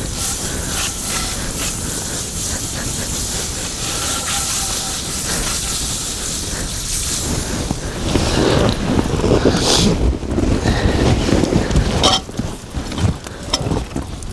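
Wind buffeting the microphone over a steady hiss, the gusts growing much louder in the second half, with a few sharp clicks.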